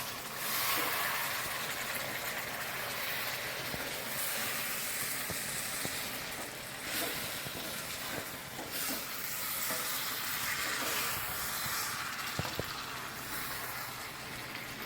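Masala-coated chicken pieces sizzling steadily in oil in a pan, cooked without water, with a few light knocks of the stirring spoon. The oil has separated out of the masala.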